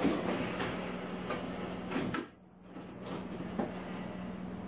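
Water running from a tap, shut off about two seconds in, with a few sharp clicks; a fainter hiss follows over a steady low hum.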